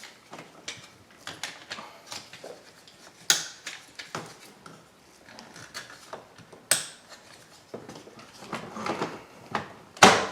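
Plastic wiring connectors being handled and snapped into place on a car door's lock and latch mechanism: small rattles and scraping with several sharp clicks, the loudest near the end as a connector clips home.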